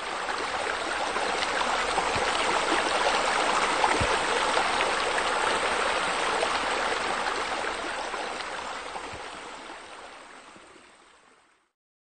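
Steady rush of splashing running water that swells a little and then fades out shortly before the end.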